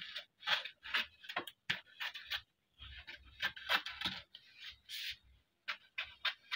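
Scissors cutting through Ankara cotton print fabric: a steady run of crisp snips, about two to three a second, with a couple of brief pauses.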